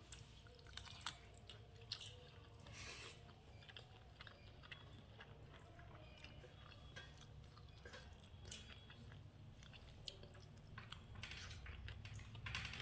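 Faint mouth sounds of a person chewing food, with many small scattered clicks and smacks.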